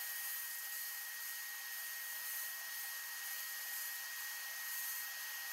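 Handheld sandblast gun in a blast cabinet, running as a steady hiss of air and abrasive with a thin, high steady whistle over it, stripping rust and old paint from a steel toy part.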